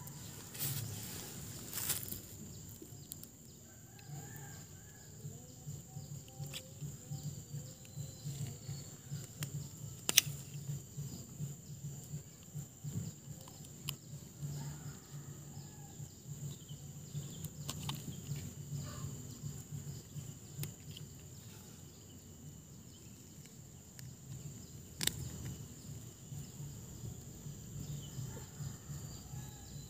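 Quiet rural outdoor ambience: faint bird calls come and go over a steady thin high tone and a low irregular pulsing. It is broken by two sharp clicks, one about ten seconds in and one about twenty-five seconds in.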